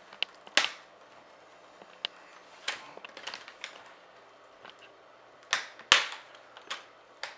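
Plastic snap clips of an Acer Aspire 5253 laptop's screen bezel popping loose one after another as the frame is pried off by hand: a scattered series of sharp clicks, the loudest about six seconds in.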